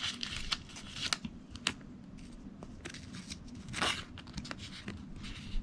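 Light rustling and soft clicks of a Pokémon card being handled and slid into a plastic card sleeve, with one louder rustle about four seconds in.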